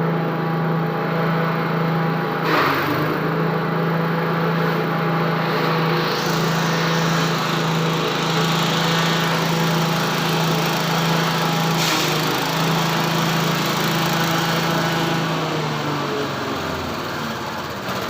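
Livestock forage chopper machine running with a steady mechanical drone and a strong hum. There is a brief sharp noise about two and a half seconds in and another near twelve seconds.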